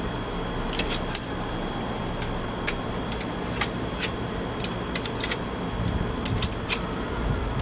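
Small metal parts clicking and clinking irregularly as they are handled, about fifteen sharp clicks, over a steady background hum with a faint high whine.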